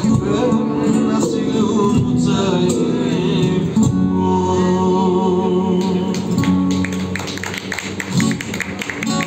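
Amplified acoustic guitar and a male singer: a wavering vocal line over strummed chords, then long held chords that die down over the last few seconds as the song ends.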